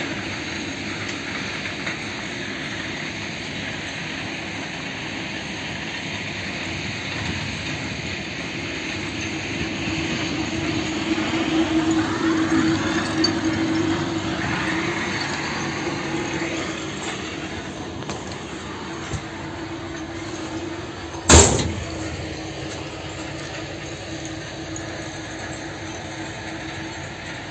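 Steady machinery hum with a constant low droning tone, swelling for a few seconds around the middle. One sharp knock comes about three-quarters of the way through.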